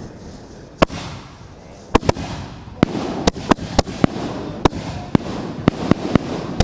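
Fireworks going off: a single sharp bang about a second in, then a rapid, irregular string of bangs from about two seconds in, several a second, over a steady hiss.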